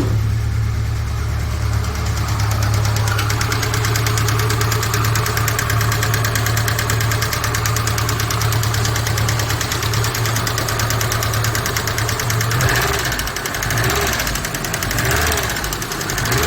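Chevrolet Niva engine running just after a cold start, with a rapid, even ticking clatter from the valve train over its steady drone. The ticking is from the hydraulic lifters, typical of this engine when cold. About three-quarters of the way in the drone turns uneven.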